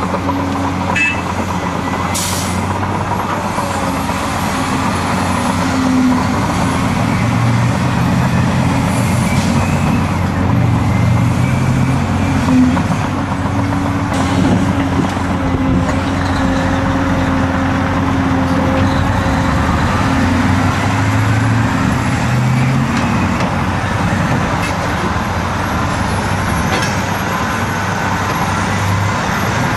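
Heavy Caterpillar diesel engines working: a Cat 385C LME excavator tipping earth into a Cat 769D off-highway dump truck, and the loaded truck pulling away. The engine note steps up and down in the middle, and a brief sharp sound comes about two seconds in.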